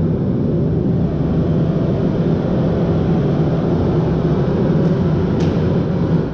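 Loud, steady test noise from the Audi's car audio system, played for a real-time analyser measurement; it sits heaviest in the bass and low mids and cuts off suddenly at the end.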